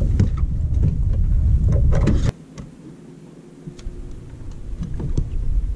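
Loud low rumble with a few light clicks that cuts off abruptly a little over two seconds in, leaving a faint steady hum and occasional clicks while the low rumble slowly builds back.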